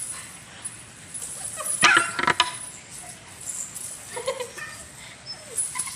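Rottweiler puppy pouncing after a collar chain on a tiled floor: a loud burst of clattering from the chain and her claws about two seconds in, then a few short whimpers.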